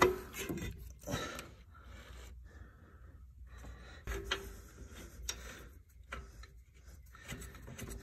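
Faint metal clicks and scraping from hands working at a disc-brake caliper, fitting its mounting bolts and starting them by hand, with a few separate clicks spread through.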